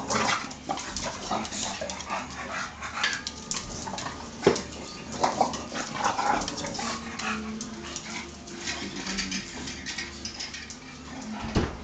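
English bulldogs and an English bull terrier play-fighting, making short dog vocal noises amid scuffling and clicking on a tiled floor. There is a sharp knock about four and a half seconds in.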